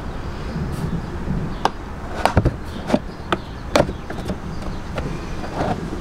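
Sharp plastic clicks and knocks, about seven spread through the middle seconds, as the white plastic room-divider panels of a purple martin house are handled and fitted into place, over a steady low outdoor rumble.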